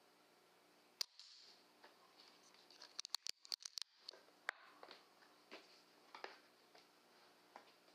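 Small clicks and taps from handling gear: a sharp click about a second in, a quick run of clicks around three seconds in, then softer scattered taps.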